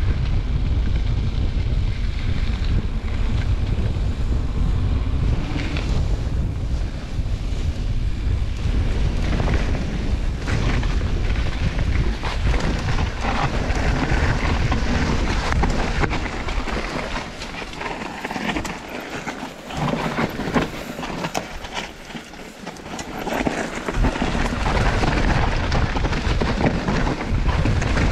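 Wind buffeting the microphone on a fast mountain-bike descent, with a steady rattle and knocks from the bike over rough, steep trail. The wind rumble eases off for several seconds past the middle, then comes back.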